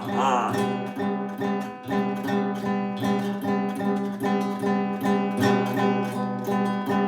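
Acoustic guitar strummed steadily in a repeating rhythm, the same chords ringing on between sung lines.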